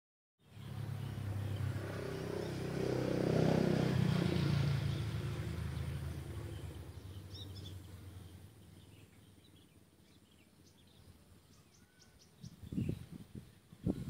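A passing motor vehicle: its engine hum swells over the first few seconds and fades away by about eight seconds in. As it fades, a small bird chirps in short high notes, and a few low thumps come near the end.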